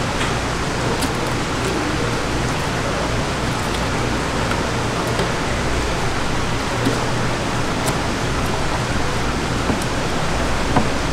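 Steady rushing noise with a low hum under it, and a few faint, sharp clicks of a knife against a plastic cutting board as a flounder is filleted.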